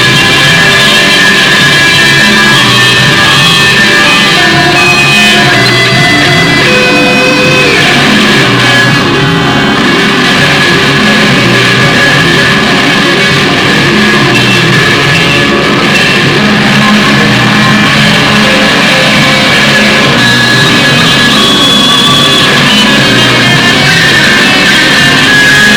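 Loud rock music led by electric guitar, dense and steady throughout.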